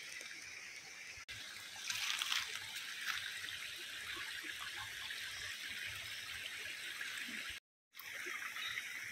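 Running water, a steady rushing trickle over rocks, which drops out for a moment near the end.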